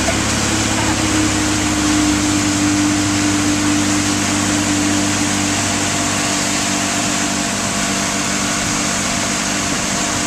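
Motorboat engine running steadily at towing speed, under the rush of water from the boat's churning wake.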